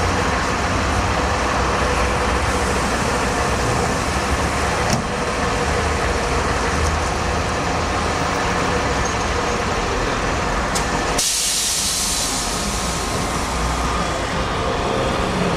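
Steady street traffic noise at a trolleybus stop. About eleven seconds in, a sudden loud hiss of released compressed air from the trolleybus, fading over a second or two.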